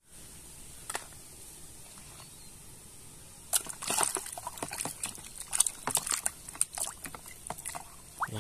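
A hand sloshing and splashing muddy water in a plastic basin while washing a plastic toy car. It is fairly quiet at first, then quick, irregular splashes start about three and a half seconds in and carry on.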